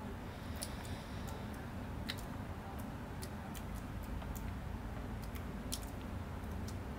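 Steady low background rumble with faint, irregular clicks, about two a second.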